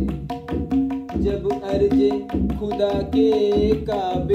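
Tabla playing a steady rhythmic accompaniment: deep bass-drum strokes under the ringing, tuned treble drum. A man's singing voice comes in near the end.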